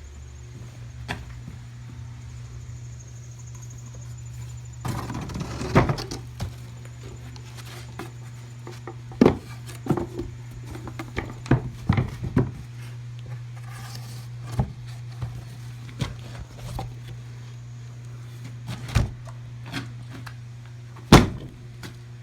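A series of wooden knocks and thumps, a coop door and its fittings being handled, over a steady low hum. The loudest knock comes near the end.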